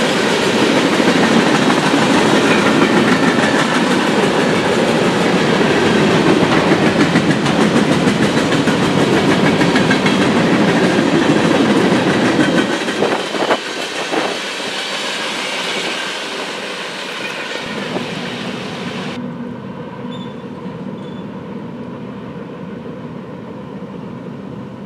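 Freight train cars rolling past close by, steel wheels clacking over the rail joints in a steady run. About halfway through the sound drops abruptly, then carries on softer and fades as the end of the train moves away.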